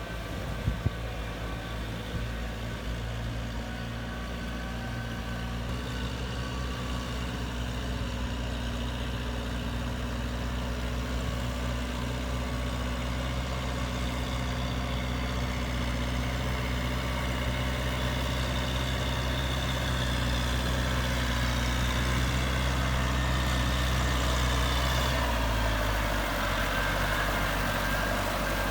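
Tractor engine running steadily, slowly growing louder, its note shifting lower about twenty-five seconds in. Two sharp knocks sound just under a second in.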